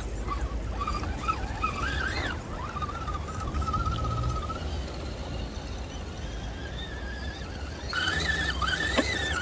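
Electric motor and gear drive of a 1/10 RC rock crawler whining, the pitch rising and falling with the throttle and climbing again near the end, over a steady low rumble.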